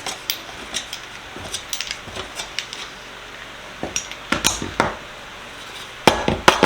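Metal sockets, wrench and trays of a Tomahawk socket set clinking and clattering as they are handled and taken apart. The sharp knocks bunch together about four seconds in and again near the end.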